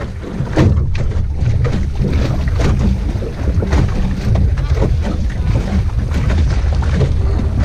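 Wind rumbling heavily on the microphone of a camera mounted on a small sailing dinghy under way, with frequent short splashes of water against the hull.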